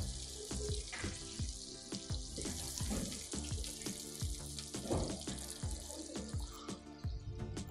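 Butter sizzling and bubbling as it melts in a hot pot, under background music with a steady beat.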